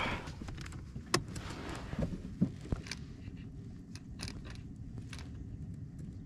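Scattered clicks and knocks of gear against a kayak's plastic hull over a steady low rumble of wind and water.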